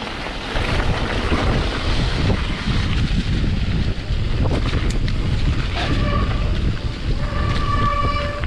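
Wind buffeting the camera microphone on a mountain bike descending a wet gravel trail, over a steady low rumble of tyres rolling and the bike rattling. A brief high-pitched tone sounds twice in the second half.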